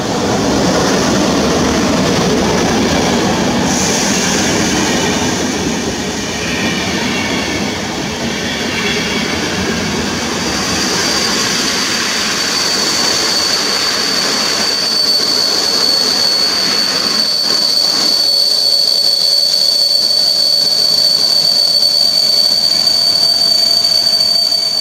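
An EP09 electric locomotive and its InterCity coaches rolling past on the rails. From about ten seconds in, a steady high-pitched wheel squeal sets in and holds as the train draws away.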